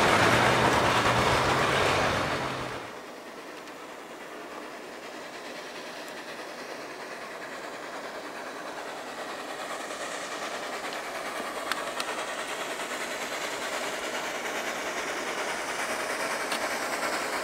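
Steam locomotive, a 2-8-2 Mikado, approaching with its passenger train and working, the sound growing slowly louder. In the first three seconds a louder train sound with a low steady hum plays, and it cuts off abruptly.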